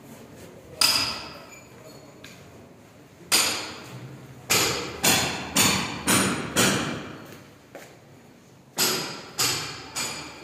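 Hammer blows, about ten sharp strikes, single at first and then in runs of about two a second, each ringing out in a bare, echoing room.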